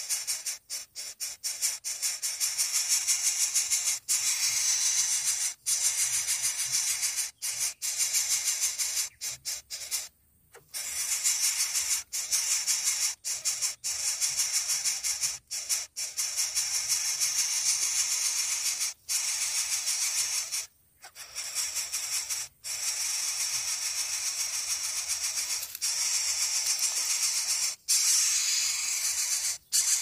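Coucal nestlings begging at the nest: a dry, rasping hiss repeated in long runs, broken by short silences.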